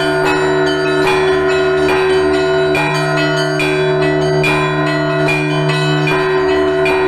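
Russian Orthodox church bells being rung (zvon): smaller bells struck about twice a second over the steady hum of the larger bells.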